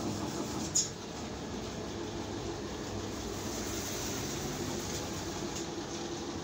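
Steady mechanical running noise from the molding presses and their motors, an even rumbling drone with a sharp click just under a second in.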